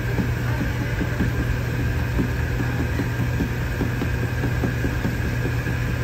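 A steady low mechanical hum, with faint short ticks or rustles scattered over it.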